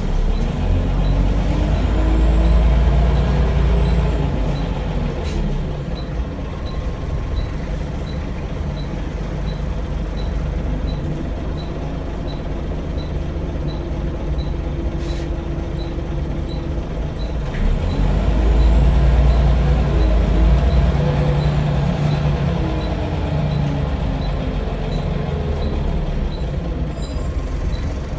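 Scania L94UB bus's rear-mounted diesel engine heard from inside the saloon, pulling away with its pitch climbing through the gears, settling to a steady cruise, then accelerating again about two-thirds of the way in. A light tick repeats about twice a second.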